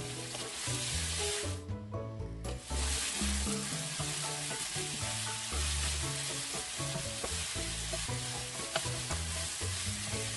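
Raw pork cubes sizzling in hot oil in a nonstick pan, stirred and scraped with a wooden spatula. The sizzle briefly drops out about two seconds in.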